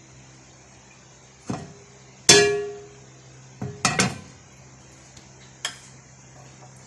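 Metal frying pan being handled on the stove: a few clanks, with one loud ringing clang about two seconds in, a quick run of knocks around four seconds and a single click near the end.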